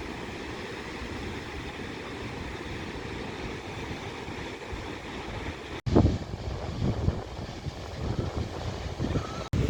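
Wind and surf noise at the beach, steady at first; after a cut about six seconds in, gusts of wind buffet the microphone with low rumbles.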